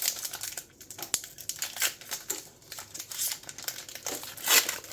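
Trading card booster pack wrapper crinkling and tearing as it is torn open by hand, in irregular crackles that are loudest near the end.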